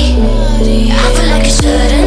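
Electronic dance music with deep sustained bass and synth chords; a steady drum beat comes in about one and a half seconds in.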